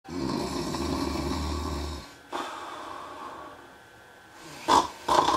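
A man snoring loudly. A long, rough snore is followed by a quieter breath out, then a short, sharp snort near the end as the next snore begins.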